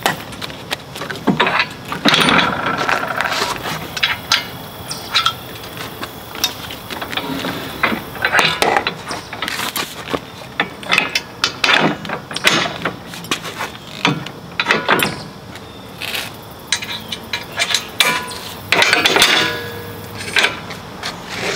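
Irregular metal clanks, clicks and rattles as a John Deere 1025R compact tractor's folding roll bar is swung upright and its pins and latches are worked into place by hand.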